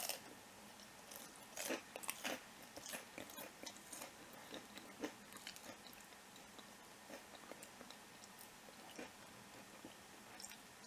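A person chewing a mouthful of crispy battered vegan tempura: irregular crunches of the batter, quick and frequent for the first few seconds, then fewer and softer as the bite is chewed down.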